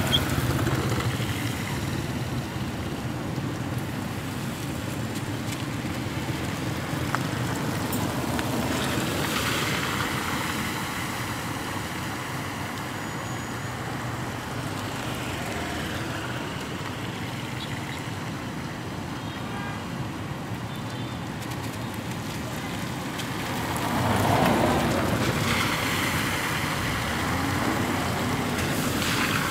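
Motorbikes and cars driving slowly through floodwater on a road, engines running and tyres sloshing and splashing through the water as each one passes. The loudest vehicle passes about 24 seconds in, its engine note dropping as it goes by.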